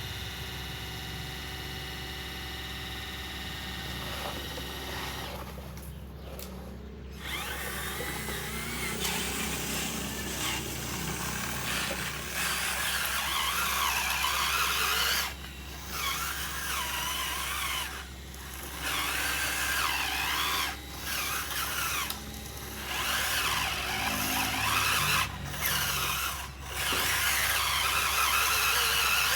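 Small electric motors of radio-controlled construction models whining in bursts that start and stop every second or two, with the pitch wavering under load. The first few seconds hold only a steady hum before the motors start.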